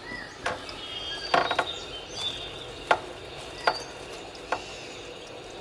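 Small pruning scissors snipping plant stems: five or six sharp, short snips at uneven intervals, one of them a quick double cut.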